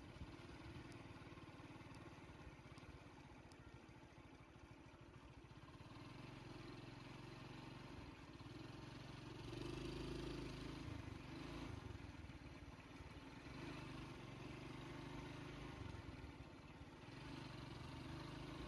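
A motor vehicle's engine running steadily at low revs, a little louder about halfway through.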